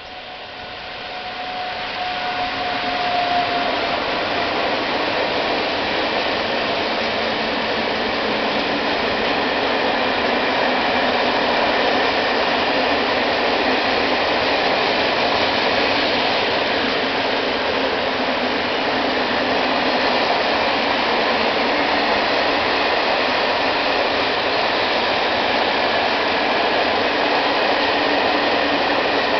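Freight train hauled by a Siemens ES 64 F4 Eurosprinter electric locomotive passing at speed: a steady whine as the locomotive goes by in the first few seconds, then the loud, steady rolling rumble and rattle of a long string of open freight wagons on the rails.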